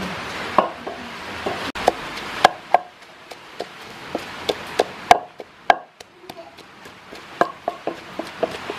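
Wooden pestle pounding into a wooden mortar full of shredded food: short, dull knocks at an uneven pace of about two to three a second, with a brief pause partway through.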